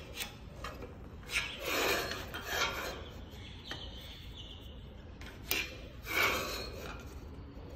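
Scraping and rubbing strokes, in two longer bouts about a second and a half in and again near six seconds, with a few sharp clicks between them.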